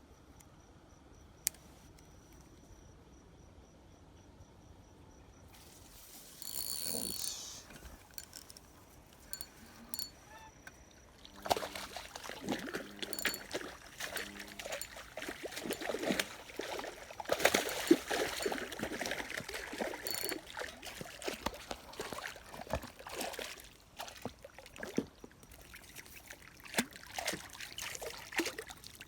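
A faint steady insect trill, then from about six seconds in irregular splashing and trickling of water, busiest through the middle and thinning out toward the end.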